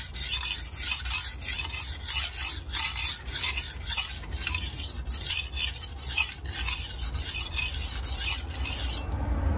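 Steel chef's knife blade being stroked back and forth on a wet Dalstrong water stone, a rapid run of gritty scraping strokes, about two a second, that stops near the end. The hard stone is cutting well.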